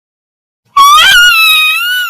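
Cartoon character's crying sound effect: a very high-pitched, loud wailing cry starts suddenly about three-quarters of a second in and is held on a wavering pitch.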